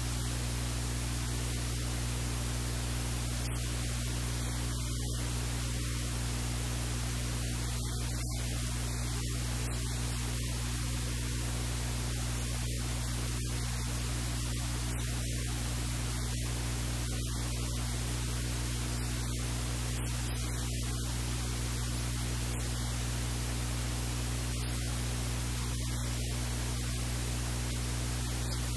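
Steady, unchanging hiss like static, with a constant low electrical hum underneath.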